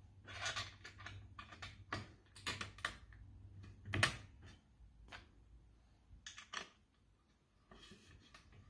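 Irregular light clicks and knocks of a wooden plinth and its steel bolts being fitted against a metal sofa-bed frame, the loudest knock about four seconds in.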